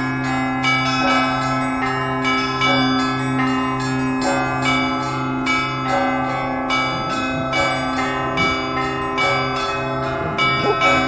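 Russian Orthodox church bells in a full peal (zvon): smaller bells struck in quick rhythmic succession over the steady, sustained hum of a large bell.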